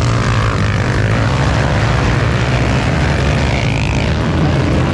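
A pack of motocross dirt bikes racing past on a dirt track, several engines revving up and down together in a loud, steady drone.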